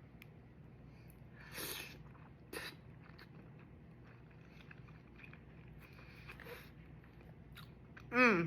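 A person eating soup dumplings with soft chewing and mouth sounds. A louder wet bite or slurp comes about a second and a half in, and a click about a second later. A brief voiced sound is heard near the end.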